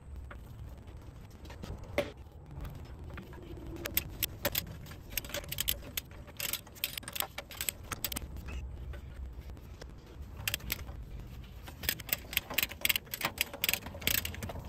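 Socket ratchet clicking in quick runs as the mounting bolts (cap screws) of a tractor's hydraulic steering cylinder are turned in. The runs come a little past halfway and again, densest, over the last few seconds.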